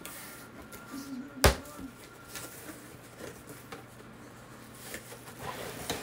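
Cardboard box flaps being opened and handled, with one sharp click about a second and a half in and rustling near the end.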